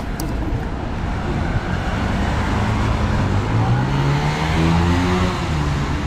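Street traffic: steady road noise, with a vehicle engine rising slightly in pitch as it passes through the middle.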